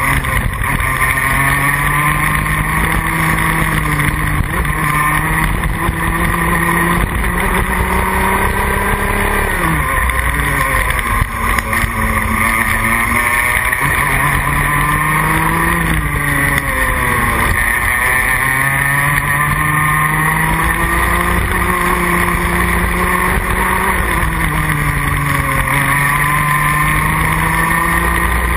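Rotax Max Junior 125cc two-stroke kart engine at racing speed, heard onboard. Its pitch climbs steadily, then falls sharply three times as the driver lifts off into corners, and climbs again each time.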